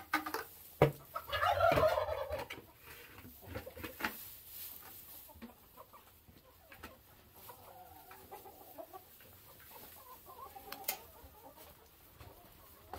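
Flock of hens clucking, with one louder squawking call about a second and a half in and softer murmuring clucks after it. Two sharp knocks near the start.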